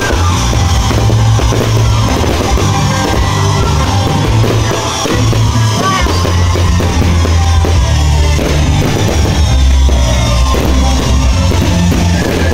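Loud music with drums and a bass line, rock-like in style.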